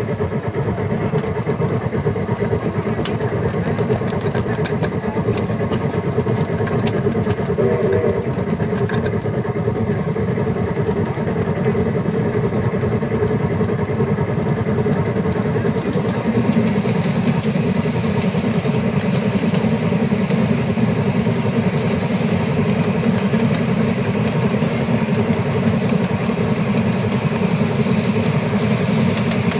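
Ride-on battery-powered miniature steam locomotive running along its track: a steady rumble from its drive and wheels on the rails, growing louder about halfway through as it rolls onto a steel bridge.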